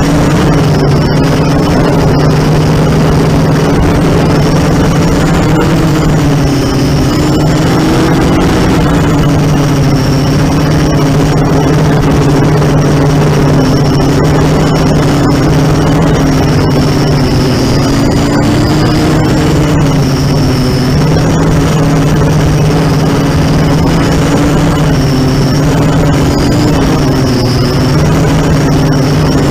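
ZMR 250 racing quadcopter's four electric motors and propellers buzzing continuously, with a high motor whine whose pitch wavers up and down as the throttle changes.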